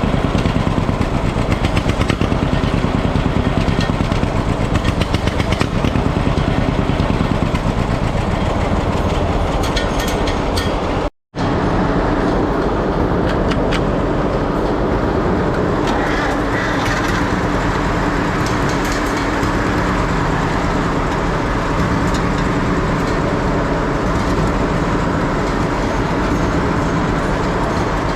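Antique tractor engine running steadily with a fast, even pulse. About eleven seconds in the sound cuts out abruptly for a moment, then carries on as a steadier engine note.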